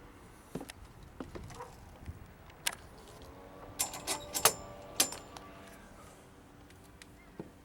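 Scattered knocks and clicks of things being handled, with a brief burst of metallic clinking and jangling about four to five seconds in.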